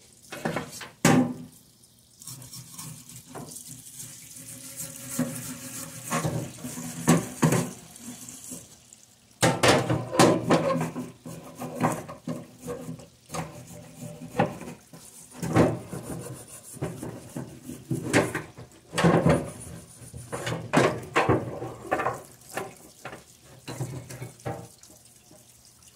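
A metal oil pickup tube being cleaned under a running stream of liquid, with a steady hiss of flow and repeated knocks and clatters as the tube is handled and scrubbed against a hard basin.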